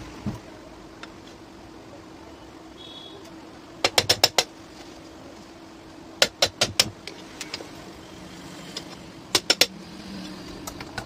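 Sharp knocks struck against a ceiling fan motor's metal casing, in three quick groups of three or four strikes about two to three seconds apart, as the casing is tapped to work the cover loose and open the motor. A faint steady hum runs underneath.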